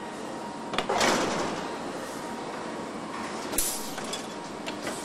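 Car assembly-line factory noise: a steady machine background, with a click and a short hiss about a second in, and a sharp metallic clank a little past halfway as the door-handling rig moves.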